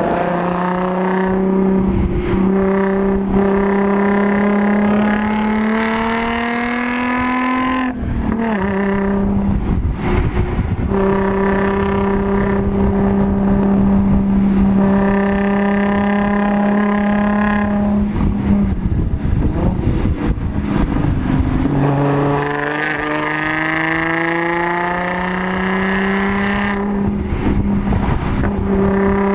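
Audi S4's supercharged 3.0-litre V6, fitted with an AWE Touring exhaust, heard from inside the cabin under hard acceleration on track. The engine note rises through two long pulls with a steady stretch between them, and each pull breaks off into a rough, uneven spell as the throttle lifts.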